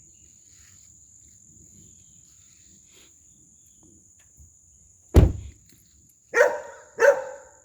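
After a few seconds of faint background, a sudden loud thump, then a dog barks twice about half a second apart, warning off birds flying through the trees.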